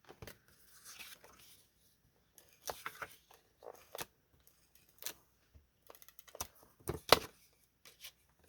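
Paper and cardstock handled on a tabletop: scattered rustles, light taps and short clicks, the sharpest click about seven seconds in.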